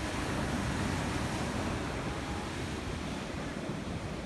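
Ocean surf washing steadily onto the shore, with wind rumbling on the microphone.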